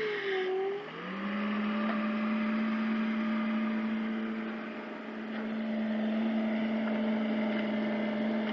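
Small excavator running steadily while digging, its engine and hydraulics giving a steady hum. Its pitch sags briefly at the start, as under load, and comes back up about a second in.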